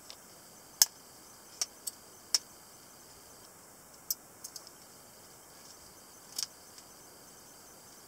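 Small skeletonized butterfly knife (balisong) being unlatched and opened by hand: a handful of sharp, irregular clicks as the latch and handles knock against each other, the loudest a little under a second in and a quick double click near the end, over a faint steady hiss.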